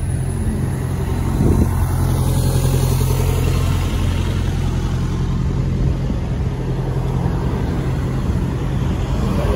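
Road vehicle engines on a city street: a double-decker bus running as it passes close by, with a car approaching, giving a steady low engine drone over traffic noise.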